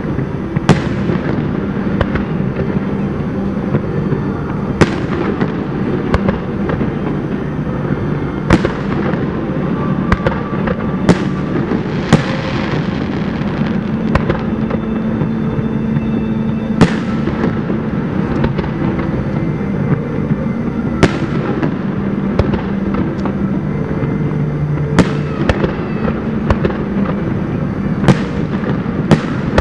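Aerial firework shells bursting in a display: about ten sharp booms spaced a few seconds apart, each trailing off in an echo, over a steady background rumble.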